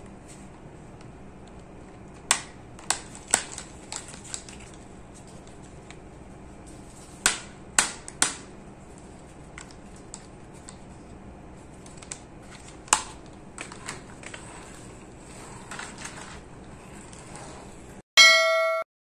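Hard plastic toy dump truck being handled, with scattered sharp clicks and knocks of plastic on plastic. Near the end, a short loud electronic bell chime.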